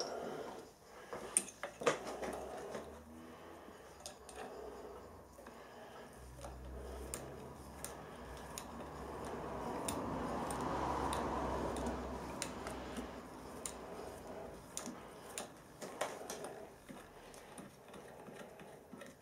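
Light clicks and clinks of small metal hand tools being handled: a small tap and a T-handle tap wrench picked up and fitted together. A soft, swelling rustle of handling noise rises and fades in the middle.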